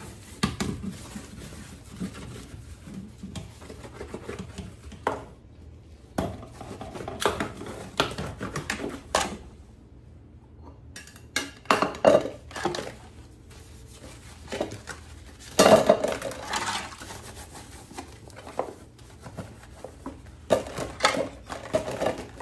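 Washing up by hand in a sink: irregular clinks and clatters of pans, a metal strainer and plastic containers being scrubbed with a sponge and put down. The loudest clatters come about 12 and 16 seconds in.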